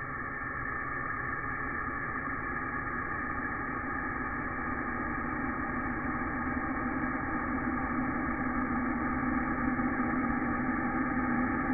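Space sonification: spacecraft-recorded radio or plasma-wave emissions turned into audible sound, a steady, hissing drone with a few fixed pitches that slowly grows louder.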